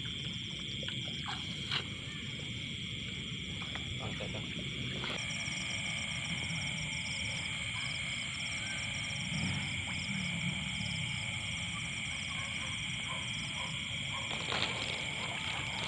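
Nighttime chorus of frogs and insects: a steady shrill trilling all through, joined about five seconds in by a faster pulsing trill higher up, over a low rumbling underneath.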